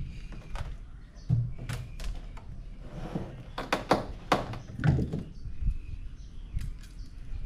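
Hollow plastic thumps and knocks from a blue plastic drum and its plastic chair as a person climbs in and sits down, with a quick run of sharp clicks and knocks in the middle and a heavier thump about a second and a half in and again about five seconds in.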